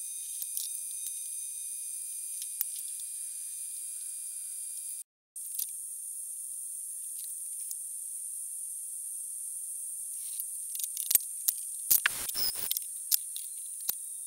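Steady high hiss, then a cluster of sharp metallic clicks and knocks about eleven to thirteen seconds in, as steel tubing and welding clamps are handled on a wooden workbench.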